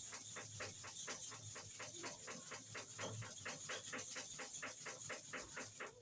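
Hair-clipper blade being rubbed back and forth by hand on a sharpening surface: an even run of short scraping strokes, about four to five a second, that stops abruptly at the end.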